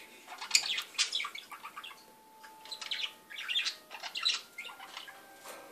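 Pet budgerigars chirping and chattering: several clusters of quick, high calls with short pauses between them.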